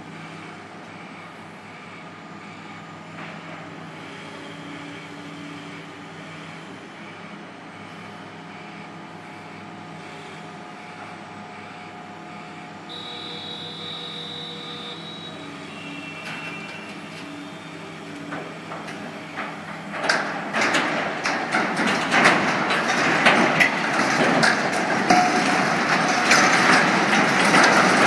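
A machine runs steadily for about twenty seconds. Then a structure gives way under the pull of a demolition cable: loud crashing and rumbling of masonry and debris falling, with many impacts, going on to the end.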